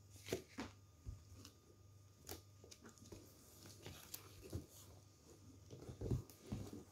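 A pressure cooker's cardboard box being picked up and turned over by hand: scattered light knocks and scrapes, with a louder thump about six seconds in.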